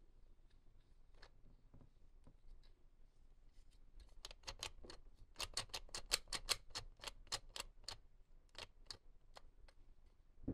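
Sharp little clicks and taps of toys and packaging being handled. They are sparse at first, then come fast and fairly evenly, about five a second, for several seconds before thinning out near the end.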